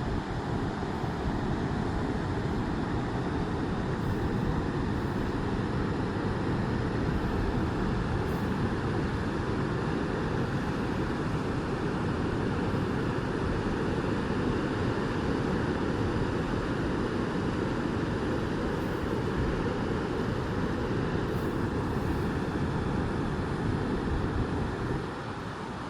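Steady, continuous roar of Pacific Ocean surf breaking on the beach, with a low rumble of wind on the microphone. It eases slightly near the end.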